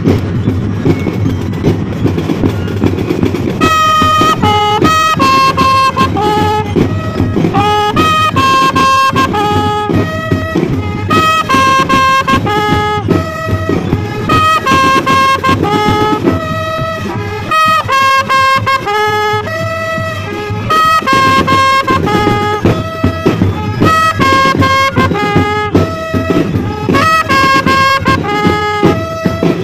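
Drum and bugle corps playing: drums alone at first, then about three and a half seconds in the bugles come in with a melody over the bass drum beat.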